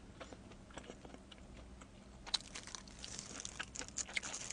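Close-miked chewing of pepperoni pizza, with soft mouth clicks. From about halfway there are sharper crackly clicks and rustling as a plastic-gloved hand reaches into the pizza box.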